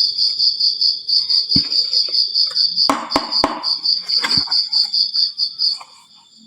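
A high chirping that pulses about six times a second, like a cricket, dropping away near the end. Over it, marbles clack against a wooden marble-run slope: a handful of sharp knocks, several close together around the middle.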